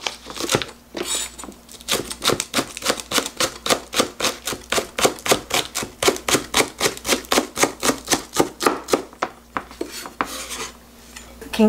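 Chef's knife slicing a green onion on a cutting board: quick, even chopping strokes, about five a second, each cut tapping the board, starting about two seconds in and stopping near the end.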